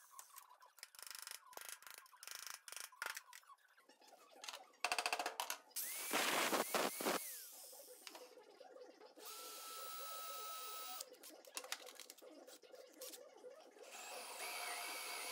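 Electric drill boring into a spot weld in steel sheet, run in several short bursts of one to two seconds with clinks and knocks of metal and tools between them.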